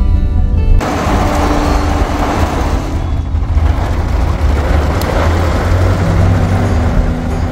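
Steady hiss of rain and wet-road traffic with a low rumble, heard from inside a car's cabin. It takes over from background music about a second in.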